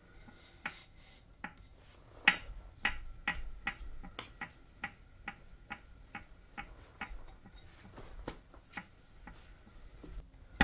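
2018 Wahoo Kickr smart trainer clicking over and over as it turns, about two or three sharp clicks a second. The owner suspects something loose or a bearing slipping.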